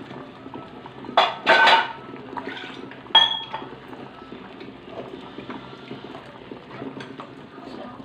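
Steel ladle stirring thin masala gravy in a metal kadai, scraping and knocking against the pan, with a burst of clatter about a second in and a sharp ringing clink about three seconds in. Water is poured into the gravy as the stirring starts.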